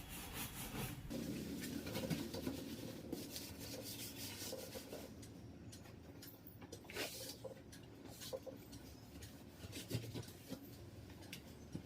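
Soapy scrubbing on the outside of a refrigerator: a quiet, irregular rubbing with a few light knocks and clicks scattered through it.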